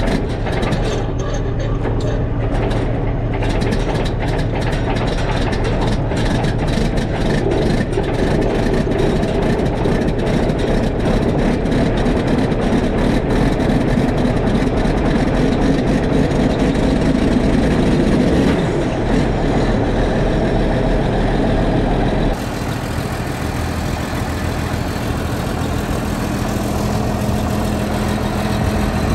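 Heavy diesel engine running steadily, with rattling and clicking over it. About three-quarters of the way through, the sound changes abruptly to a quieter, steadier engine note.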